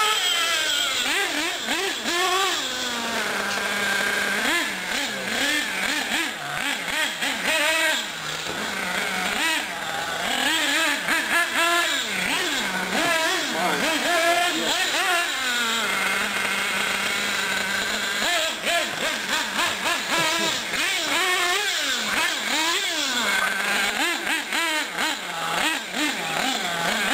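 Small nitro R/C car engine revving up and down over and over as the car is driven, dropping back to a steady idle a few times, around 3 to 5 seconds in and again around 16 to 18 seconds in.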